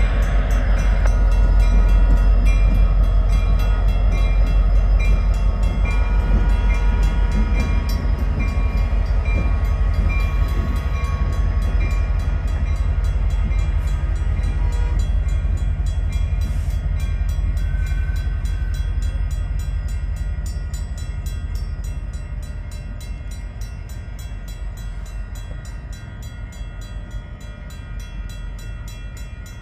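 EMD SD70MAC diesel-electric locomotive running light, its 16-cylinder two-stroke diesel giving a steady low rumble as it rolls past. The rumble slowly fades over the last third as the locomotive moves away.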